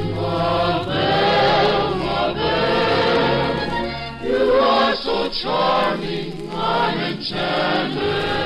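A choir singing with orchestral accompaniment, in sung phrases broken by short breaths.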